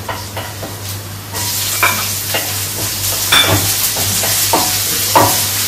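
Chopped onion frying in hot oil in a steel kadhai, the sizzle starting suddenly about a second in and holding steady. A spatula scrapes and stirs through it in repeated strokes.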